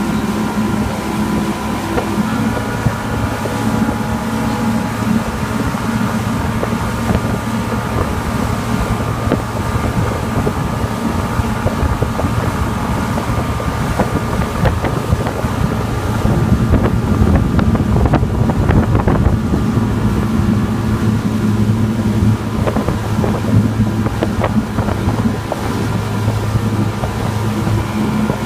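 Outboard motor of a motorboat running steadily at speed while towing, a low even drone, with wind buffeting the microphone and the rush of the churning wake. It grows a little louder in the middle.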